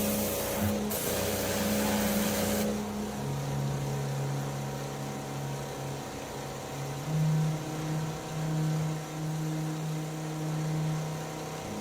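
Pressure washer spraying water into a rusty gas tank, with a brief break in the spray about a second in. After about two and a half seconds the spray stops while the washer's motor keeps running with a steady hum that steps up in pitch about seven seconds in.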